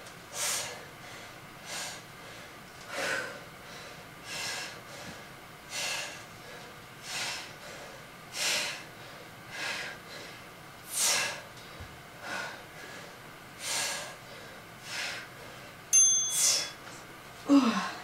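A woman's hard, rhythmic exhalations, one short forceful breath about every 1.2 seconds in time with close-grip dumbbell chest press reps. Near the end comes a short high beep, then a voiced exhale.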